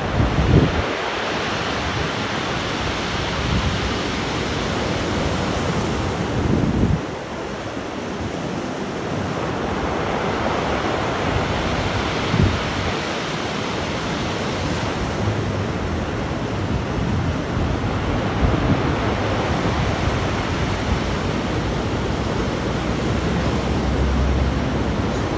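Storm surf: waves about 2.5 m high breaking in a 17 m/s wind, a steady rushing wash of water. Strong wind buffets the microphone in low rumbling gusts, about a second in, around seven seconds in, and several times later.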